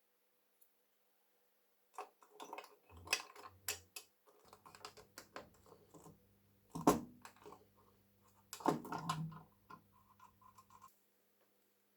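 Scattered light clicks and knocks of small sheet-metal lantern parts being handled on a workbench, with a louder knock about seven seconds in and another near nine seconds. A faint low hum sits under the second half.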